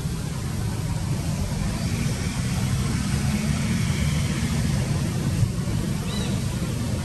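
Steady low outdoor rumble under a light hiss, with no clear source. There is a brief faint high chirp about six seconds in.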